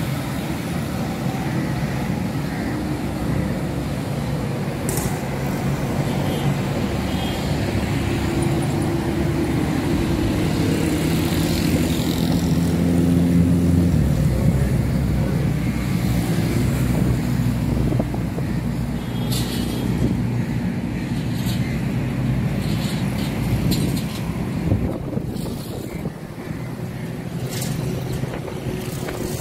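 Street traffic: motorcycle and car engines passing on a city road, a steady hum that swells around ten to fourteen seconds in and eases off over the last few seconds.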